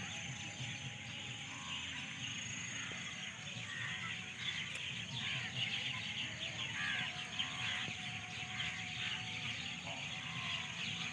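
Outdoor riverside ambience: a steady background hiss with scattered small bird chirps throughout and a faint low murmur underneath.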